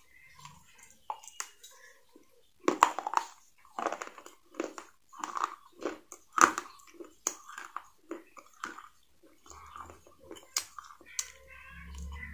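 Crispy fried chicken crunched and chewed with the mouth: a loud bite about three seconds in, then crunchy chewing strokes at about one or two a second. A faint low hum comes in near the end.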